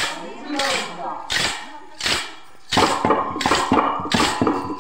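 Chekka bhajana: wooden hand clappers (chekkalu) struck in a steady beat by a circle of dancers, with a group of voices singing a devotional bhajan that gets much louder about three seconds in.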